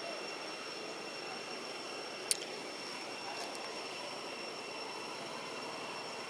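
Steady outdoor background noise, a hiss with a faint steady high whine, broken by one sharp click a little over two seconds in.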